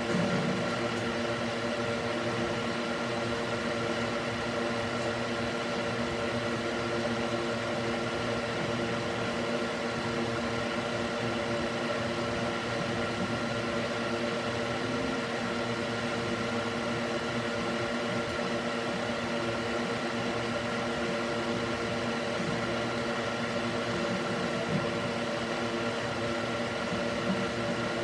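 Small electric cooling fan mounted in a wooden box, running at a steady speed: a continuous whir with a constant hum of several fixed tones.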